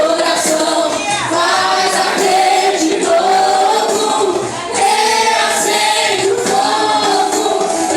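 A group of voices singing a worship song together, with sustained held notes over musical accompaniment.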